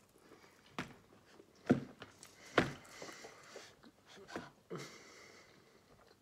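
A person chewing a mouthful of calzone: wet mouth sounds with a few short sharp clicks and smacks, the loudest about two and a half seconds in.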